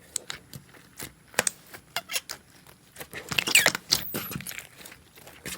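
Slime being pressed and squished by hand: irregular sticky clicks and pops, with a denser run of squelching and squeaks about three seconds in.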